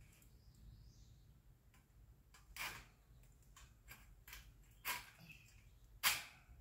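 Several sharp metallic clicks and short scrapes, the loudest near the end, as a welded-wire fence panel is fastened to a steel fence post by hand.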